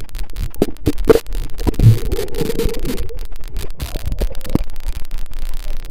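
Muffled, low sloshing and irregular knocks of pool water against a camera held at or below the surface while a swimmer moves.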